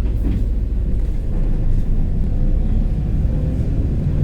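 Shuttle bus running: a steady low engine and road rumble.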